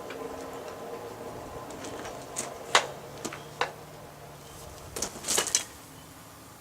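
Sharp metal clinks and taps from a blacksmith's steel tools as the pieces at welding heat are handled, over a steady low hum. The loudest clink comes nearly three seconds in, and a quick cluster follows about five seconds in.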